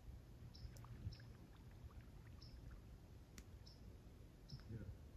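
Faint clicking from a spinning fishing reel being cranked on a retrieve, over a low background hiss, with a few sharper clicks and short high chirps every second or so.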